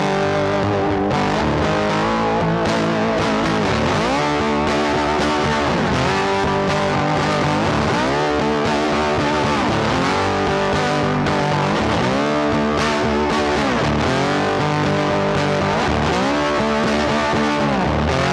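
Background music led by a distorted electric guitar, steady and loud, with a bending phrase that repeats about every two seconds.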